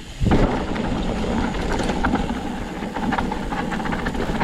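Canfield Nimble 9 hardtail mountain bike on 27.5-plus tyres riding off down a dirt trail: tyres rolling and crunching over the ground with rattles and clicks from the bike, starting in earnest just after the opening moment.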